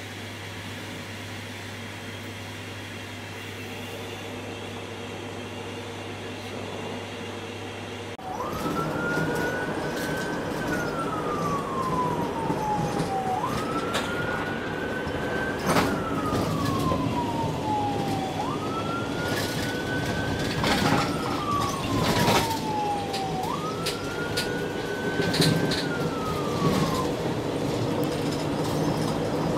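Ambulance siren wailing, heard from inside the patient compartment: after a steady hum, about eight seconds in the vehicle noise grows louder and the siren starts, rising quickly and falling slowly, four times about five seconds apart. A few knocks and rattles come from the compartment.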